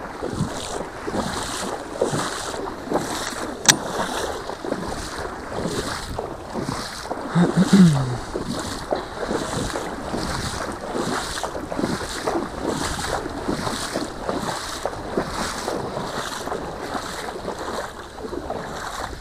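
A person wading through shallow, below-knee-deep lake water, splashing with each stride about twice a second. A short, louder low-pitched sound comes about eight seconds in.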